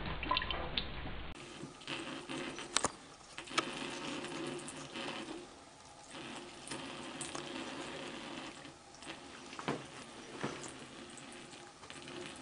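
A thin stream of water running from a bathroom faucet into the sink, a steady trickle with a few scattered small clicks and splashes.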